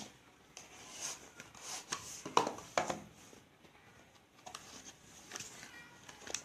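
Cardboard smartphone retail box being opened and handled: irregular scraping and rustling with a few sharp taps, loudest about one to three seconds in.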